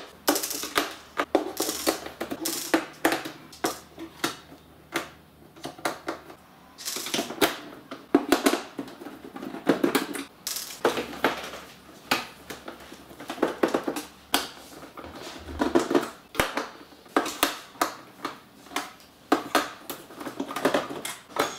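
Irregular small clicks, taps and scrapes of a hand screwdriver working screws out of a DJ controller's metal bottom panel.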